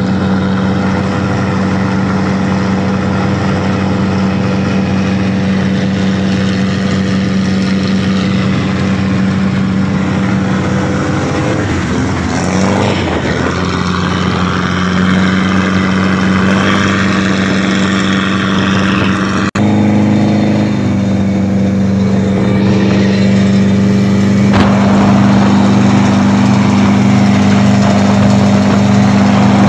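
Wooden pompong motorboat's inboard diesel engine running steadily under way, heard through its tall upright exhaust pipe, with water rushing along the hull. The sound briefly drops out about two-thirds of the way through, and the engine tone sits slightly higher after it.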